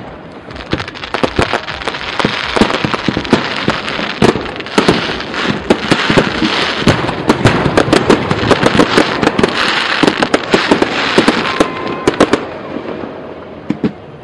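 Aerial fireworks show: a dense, rapid barrage of bangs and pops over a continuous hissing crackle, building through the middle and thinning out near the end.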